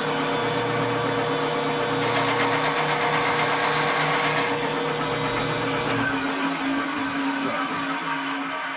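Electric power-tool motor running steadily at a constant pitch for the whole stretch; about six seconds in its lowest component drops away and the sound carries on slightly lighter.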